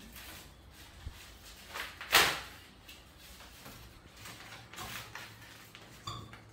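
Rustling and swishing of a white softbox diffuser cloth being unfolded, shaken out and laid into a parabolic softbox, with one sharp swish about two seconds in and softer rustles later.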